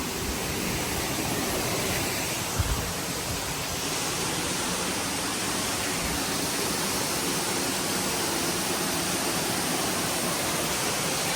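Waterfall rushing in a steady, even roar of water, with a single brief low knock about two and a half seconds in.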